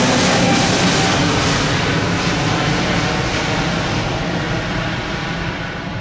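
Airbus A320neo's Pratt & Whitney PW1100G geared turbofan engines at climb thrust: a steady jet roar that slowly fades as the airliner climbs away, its high hiss thinning out first.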